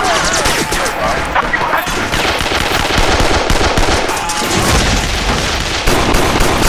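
Sustained automatic gunfire: rapid, unbroken strings of shots with no real pause.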